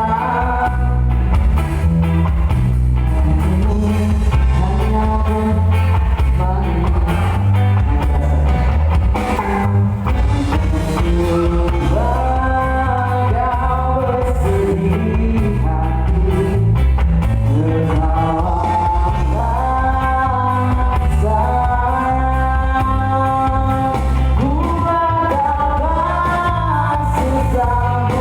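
A band playing a song with a singing lead voice over a steady, heavy bass line.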